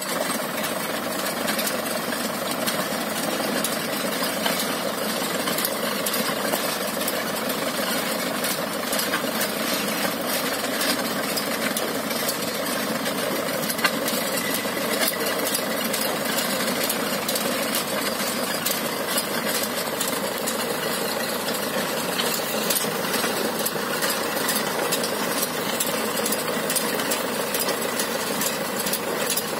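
Tractor engine running steadily as it pulls a mulch film laying machine through the soil, with one short knock about halfway through.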